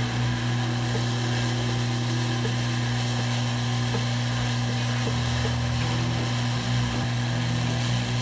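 Hot air rework station blowing steadily through its nozzle onto a phone logic board to reflow a chip's solder: an unchanging low hum with an even hiss of air.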